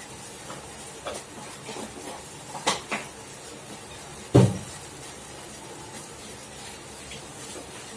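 Spice containers and a spoon being handled between additions to the pan: a few light clicks and knocks, the loudest a knock about four and a half seconds in, over a steady faint hiss.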